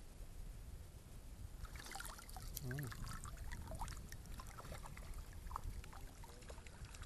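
Water splashing and spattering from about two seconds in as a hooked tilapia thrashes at the surface on a pole-rod line, over a low steady rumble.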